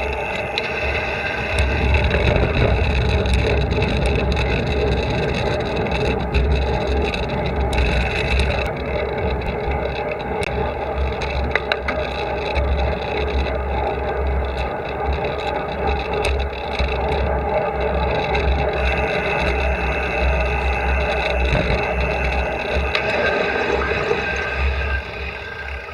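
Riding noise picked up by a handlebar-mounted camera on a moving cyclocross bike on slick 30 mm road tyres: steady wind buffeting and road rumble, with the hum of the tyres on asphalt and scattered small rattles and clicks from the bars.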